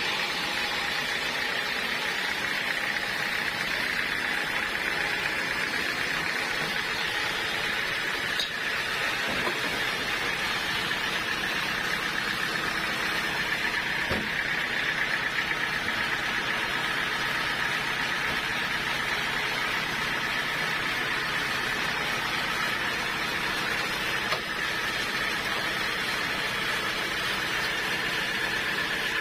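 Sawmill saw running steadily, a constant mechanical whine and rush, most likely sawing a teak log.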